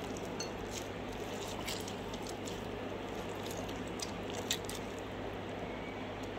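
Orange being squeezed by hand over a glass bowl: faint wet squelches of the pulp and juice dripping into the bowl, heard as a scatter of small ticks over a steady low hum.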